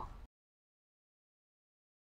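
Dead silence: the sound track cuts out completely just after the start, because the microphone has failed.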